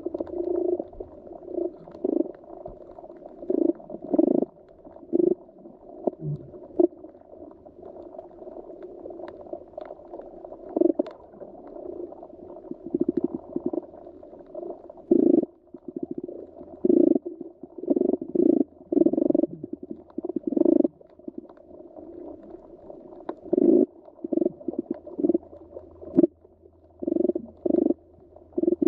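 Muffled underwater gurgling and bubbling, coming in irregular louder bursts every second or two over a steady low wash.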